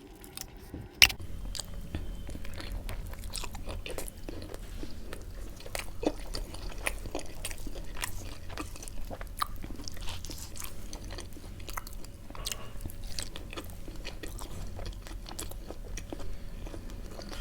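Close-miked mouth sounds of a person eating: biting and chewing with many small crunchy, wet clicks. There is a sharp knock about a second in, over a steady low hum.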